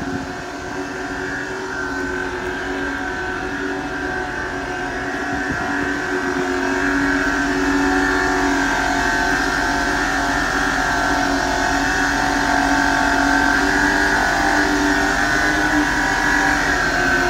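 Avgas fuel truck's pumping system running steadily while circulating fuel: a constant mechanical hum with a higher whine. It grows louder over the first several seconds, then holds steady.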